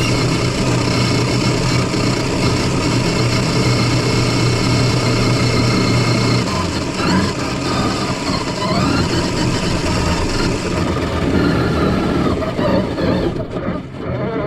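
A motor running with a steady hum that stops about six seconds in. After that its pitch rises and falls.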